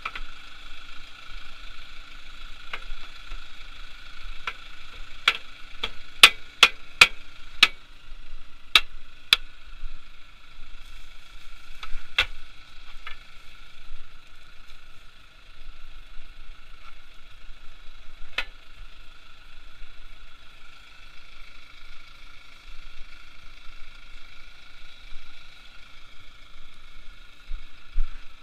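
Tractor engine idling steadily, with a hammer striking metal on a plough: a quick run of sharp blows about five to nine seconds in, and single knocks near twelve and eighteen seconds.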